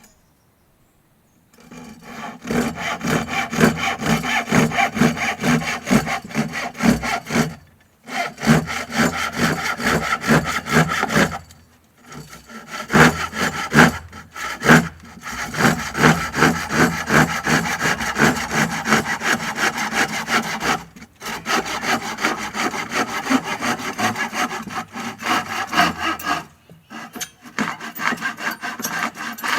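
Hand saw cutting through wood in steady back-and-forth strokes, about two or three a second. The cut goes in several runs with brief pauses between them.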